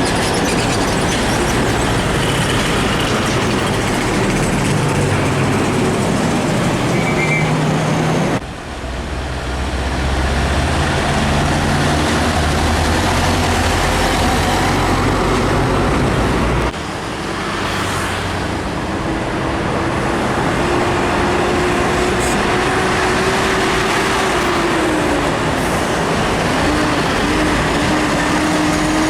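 Heavy trucks passing on a busy highway: steady engine and tyre noise, with an engine drone that falls and picks up again in the second half. The sound breaks off abruptly twice.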